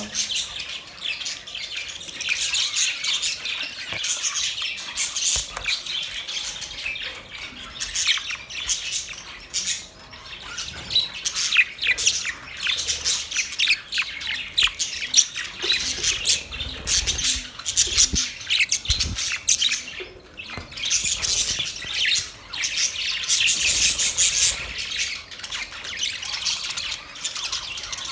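Budgerigars chattering: a dense, continuous flock warble of quick high chirps and squawks, with brief lulls about ten and twenty seconds in.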